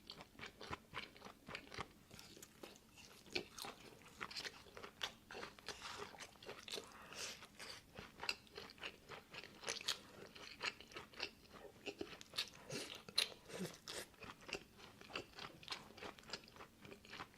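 A person chewing crunchy food, with irregular crisp crunches several times a second.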